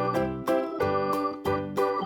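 Background music: a bright keyboard tune played in short, even notes with a steady beat.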